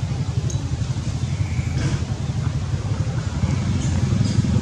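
A steady low rumble, with a few faint, short high sounds about half a second, two seconds and four seconds in.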